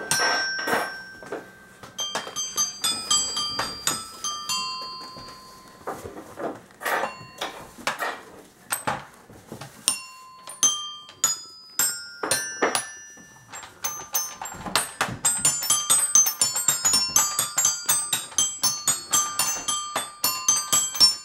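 Toy xylophone struck with a plastic mallet, ringing high notes. Scattered single notes and short runs at first, then fast, repeated strikes from about two-thirds of the way through.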